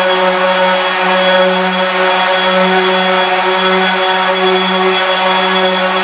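Electric power sander running steadily while rough sanding a wooden cabinet top: a constant motor hum under an even sanding hiss.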